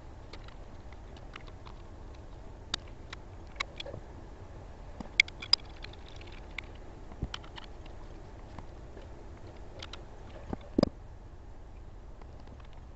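Scattered light clicks and taps of small brass fittings and hand tools being handled while sensors and a tee are threaded together, over a steady low hum. There are two sharper clicks about five seconds in and a louder knock near the end.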